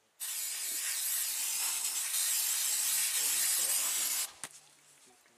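Aerosol can of blue antibiotic wound spray hissing in one steady burst of about four seconds, then cutting off suddenly.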